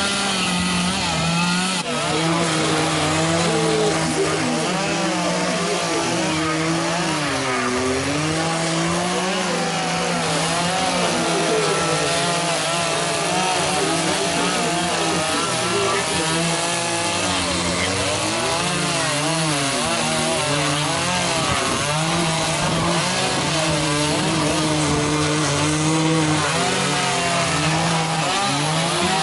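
Chainsaws cutting into wood while carving: a continuous engine drone whose pitch keeps rising and falling as the saw is revved and bogs in the cut, over a steadier low engine note.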